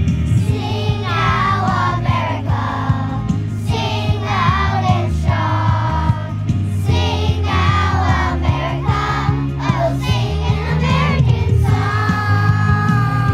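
Live band music with a singer: a steady low accompaniment under a wavering vocal melody sung in short phrases.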